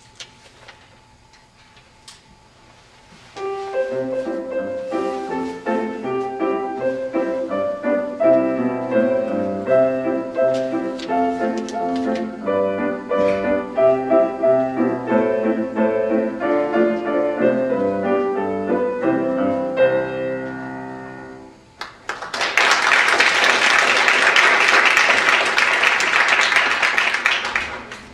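Grand piano playing a short piece that begins a few seconds in and rings out after about eighteen seconds. It is followed by audience applause for about five seconds.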